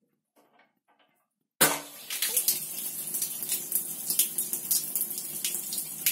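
Rinse water pushed by CO2 pressure out through a corny keg's stainless beer tap, splashing onto a tiled floor. The flow starts suddenly about a second and a half in and then runs on, splashing and spattering; it is the pre-rinse flushing the keg's dip tube and tap line.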